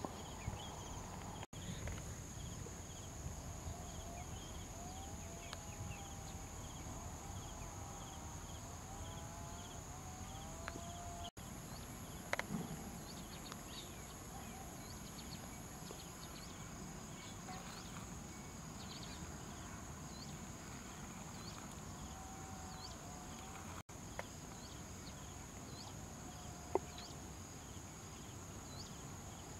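Rural outdoor ambience: a steady high-pitched insect drone with scattered short chirps and some wavering animal calls, plus a couple of sharp ticks. The sound cuts out for an instant three times.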